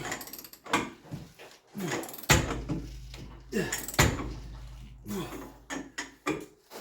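Hand wrench work on a bolt of a Ford Bronco's suspension: a run of metal knocks and clanks about once a second, some with a short creak or squeal as the bolt turns.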